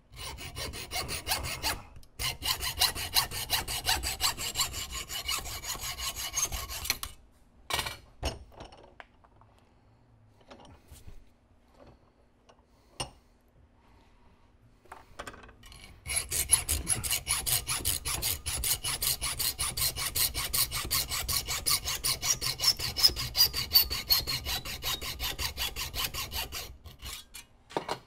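Hand hacksaw cutting through metal bar stock in rapid, steady rasping strokes: the rough cutting-out of a part's profile. It comes in two long spells, with a pause of several seconds in the middle broken by a few clicks.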